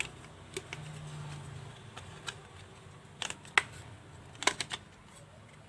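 Irregular small clicks and taps of a new SSD being unpacked from its packaging, some clustered in quick pairs, over a faint low hum.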